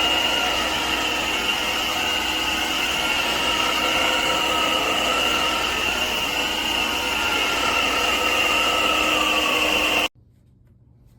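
Stick vacuum cleaner motor running steadily with a high whine over a rush of air, stopping abruptly about ten seconds in.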